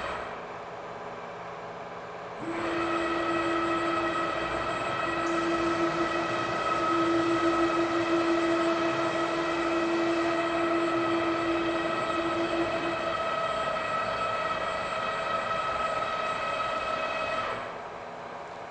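A CNC router's main spindle running: a steady, high whine with several overtones that starts about two and a half seconds in and cuts off shortly before the end.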